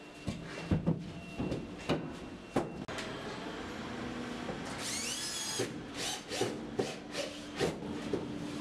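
Hollow wooden knocks and rubbing as an OSB board is handled against timber crossbars, with a short rising whine of a cordless screwdriver about five seconds in, then more knocks.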